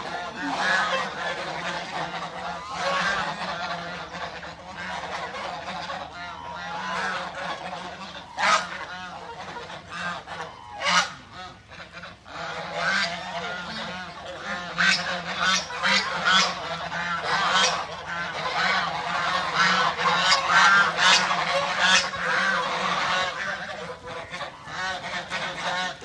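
A flock of domestic white geese honking continuously, with many overlapping calls. The calls swell louder in the second half.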